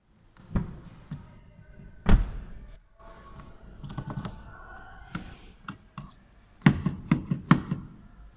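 Clicks and knocks from an Opel Insignia's door handle and lock being worked by hand and with a small tool. There is a heavy knock about two seconds in, and a quick run of four sharp clacks near the end as the handle is pulled.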